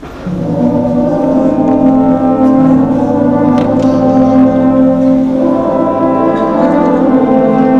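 Concert band playing full, held chords with the brass to the fore, coming in loudly about a third of a second in; higher notes join the chord around six seconds in.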